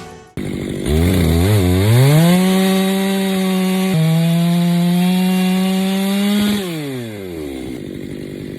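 Chainsaw engine blipped a couple of times, then revved up to full throttle and held there for about four seconds. The throttle is then released and the pitch falls back toward idle near the end.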